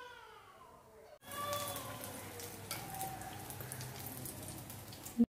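A cat's drawn-out meow fades in the first second. Then, after a sudden cut, breaded cassava cutlets sizzle and crackle steadily as they shallow-fry in hot oil.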